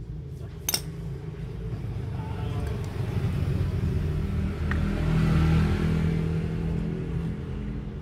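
A motor vehicle engine passing by, growing louder to a peak about five seconds in and then fading. A single sharp click sounds under a second in.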